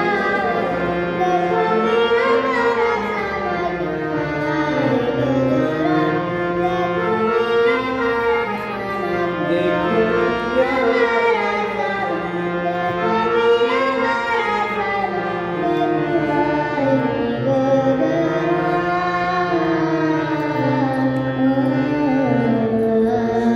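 Hindustani classical music in Raag Desh: a male voice singing with harmonium accompaniment, the melody stepping and gliding up and down.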